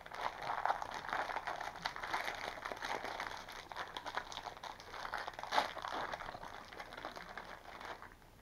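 Crinkly plastic wrappers of individually wrapped cookie packs rustling and crackling as hands handle them, with one sharper crackle about two thirds of the way through. The crackling dies down near the end.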